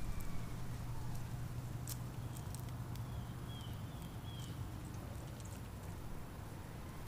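A few faint, short bird chirps about three and a half to four and a half seconds in, over a steady low outdoor rumble, with a few small clicks about two seconds in.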